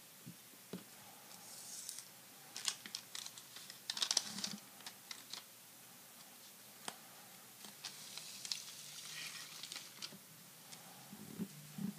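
Crinkling of the foil wrapper of a freshly cut-open pack of 1991-92 Upper Deck basketball cards as the stack of cards is pulled out: scattered sharp crackles, densest about four seconds in. Later comes a softer hiss of the cards sliding against each other.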